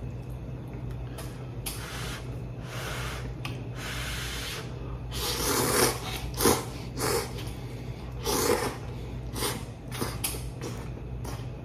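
A person slurping instant ramen noodles from a cup: a string of noisy slurps of varying length, the loudest about halfway through, followed by a run of shorter quick sucks.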